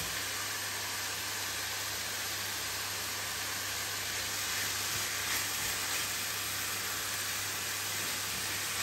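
Diced bell peppers and onion frying in olive oil in a stainless steel sauté pan: a steady sizzling hiss, with a low hum underneath.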